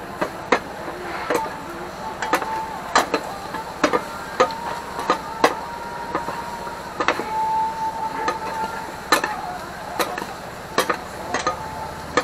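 Steel spatulas clanking and scraping on a flat iron griddle as pieces of grilled offal are turned and pushed around. The sharp metal clacks come irregularly, about one a second, with now and then a drawn-out ringing scrape.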